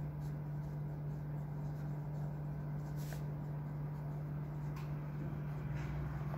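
Pen writing on notebook paper, faint scratching strokes, over a steady low hum.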